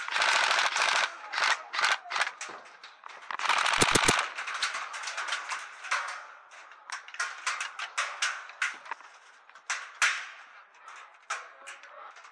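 Airsoft rifles firing in rapid automatic bursts: a long burst at the start and another around four seconds in, then shorter bursts and single shots scattered through the rest.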